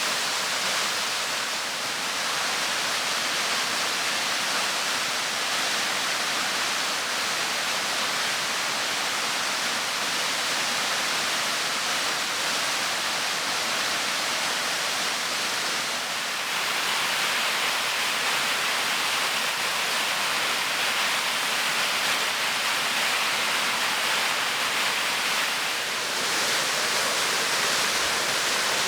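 A tall waterfall, the Clocota cascade fed by thermal springs, giving a steady rush of falling water. It grows slightly louder about halfway through.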